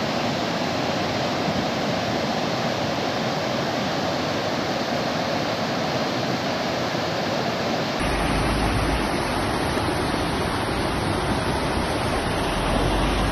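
Muddy floodwater rushing down a swollen creek in a steady, loud roar of water. About eight seconds in the sound changes to a second stretch of floodwater, with a deep low noise added underneath.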